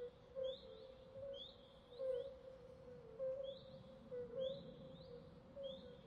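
Swamp ambience: a chorus of calling animals, with short rising high chirps repeating about once a second over a lower, steady run of short calling notes.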